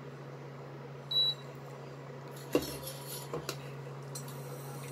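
Induction cooktop humming steadily, with a short high beep from its control panel about a second in. A stainless steel pan then knocks down onto the cooktop's glass top, followed by a lighter clink.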